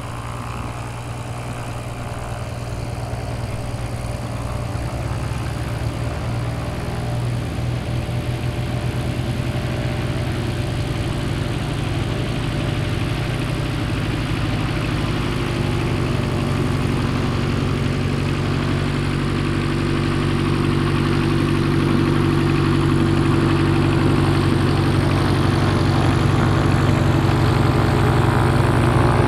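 Light aircraft's piston engine and propeller running at low taxi power, a steady drone that grows gradually louder as the plane taxis closer.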